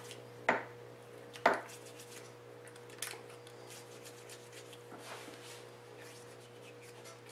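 Cleaning patches being run through a Charter Arms Pitbull revolver's bore on a cleaning rod, with four light knocks and clicks of the rod and gun against the wooden bench, the clearest about a second and a half in. A faint steady hum runs underneath.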